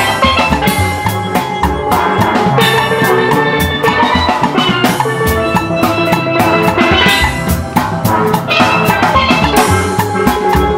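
Steel band music: steel pans playing a melody and chords over a drum kit.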